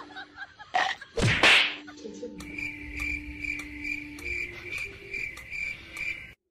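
A sharp whoosh-and-whack hit about a second in, then cricket chirping: a high, even chirp pulsing about twice a second for some four seconds, cut off abruptly.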